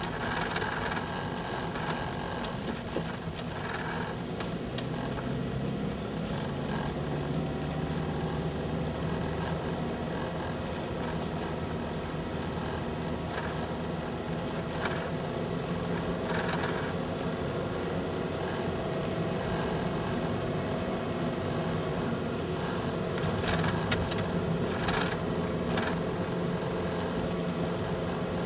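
Vehicle driving along a paved road: steady engine hum with road noise, and a few light knocks near the middle and again near the end.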